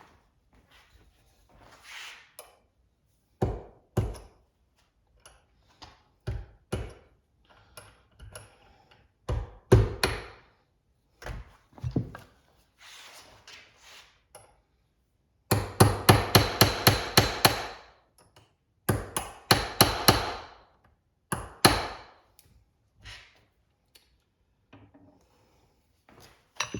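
Hammer strikes and knocks from hand tools at the workbench, scattered at first, then a quick even run of about four blows a second past the middle, followed by a few more.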